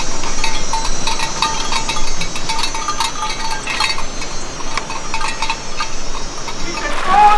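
Countryside ambience: small metal bells clinking irregularly, like those on grazing livestock, over a steady high insect buzz. A few short chirps come in near the end.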